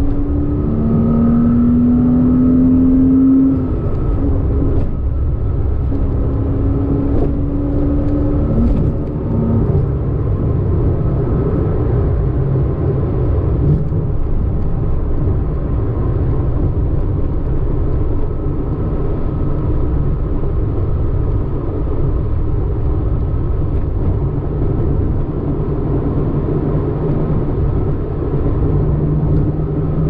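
Porsche flat-six engine heard from inside the cabin, climbing through the midrange in two rising pulls. The pitch drops sharply at the upshifts, about 3.5 s in and again near 9 s. It then settles to a steady freeway cruise over road and tyre noise.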